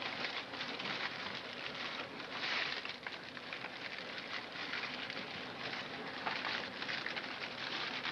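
Dry leaves crackling and rustling as hands fold and tie them around blocks of panela, with many small irregular crackles.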